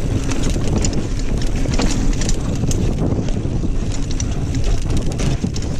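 Wind buffeting a GoPro Hero 5 action camera's microphone as a Kona Honzo ST hardtail mountain bike rides singletrack, under a steady low rumble. Frequent quick clicks and rattles come from the tyres on rough dirt and the bike's frame and drivetrain.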